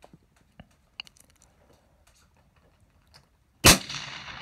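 A single rifle shot about three and a half seconds in, followed by a long rolling echo that fades slowly.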